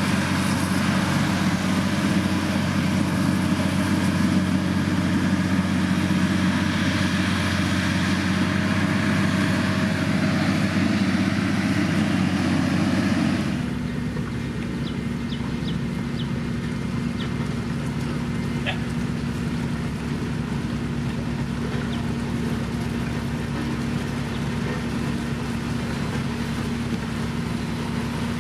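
Diesel engine of a heavy road-building machine running steadily. About halfway through, the sound changes abruptly to a slightly quieter, steady engine drone.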